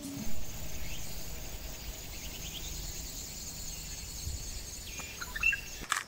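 Woodland ambience: a faint, steady high insect whine with a few short bird chirps, a small cluster of them near the end.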